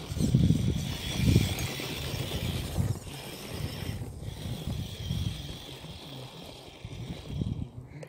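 Amewi Spirit RC rock crawler's motor and gearing whining steadily as it drives over gravel, cutting out briefly twice, about three and four seconds in. Louder low rumbles come in the first second or two.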